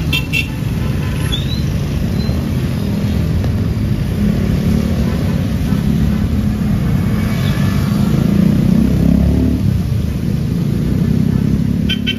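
Street traffic: a motor vehicle's engine running close by, a heavy low rumble that grows louder in the middle and eases near the end.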